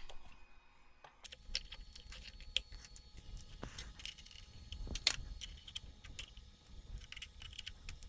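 Faint, scattered light metal clinks and clicks of a small wrench and nut as a 3D-printed plastic change gear is fitted and secured on a metal lathe's change-gear train.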